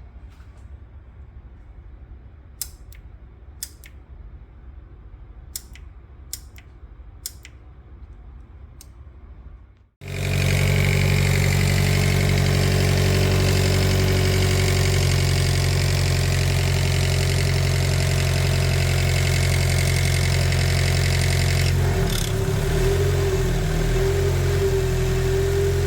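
Nissan SR20 inline-four engine running steadily and loud, heard close up. It comes in suddenly about ten seconds in, after a faint low hum broken by a few sharp clicks, and turns rougher with a stronger mid tone a few seconds before the end.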